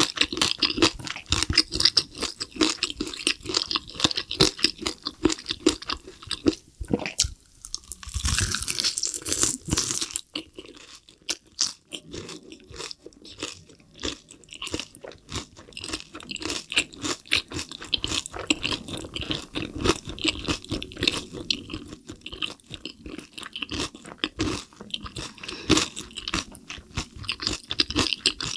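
Close-miked biting and chewing of a spicy sauce-glazed fried chicken drumstick, its crisp coating crunching in many small irregular cracks, with a louder stretch of crunching about eight seconds in. The glazed coating is still very crispy.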